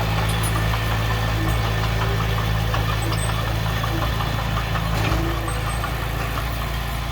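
Heavy diesel engine of earthmoving machinery running steadily at a constant pitch, with a light clatter over it.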